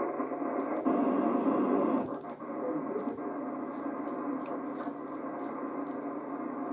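Shortwave transceiver receiving on the 11-metre (26–27 MHz) band, heard through its speaker: a steady rush of static with a louder, garbled signal in the first two seconds.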